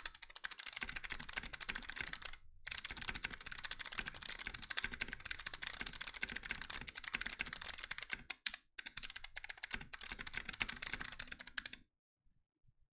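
Fast typing on a DZ60 mechanical keyboard in a resin case with Kailh Box Jade clicky switches: a dense stream of sharp, high-pitched clicks from the switches' click bars. There are brief pauses about two and a half and eight and a half seconds in, and the typing stops shortly before the end.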